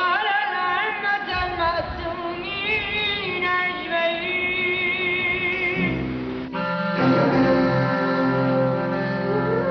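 Music: a woman singing with a strong vibrato over instrumental accompaniment, which changes to steady held chords about six seconds in.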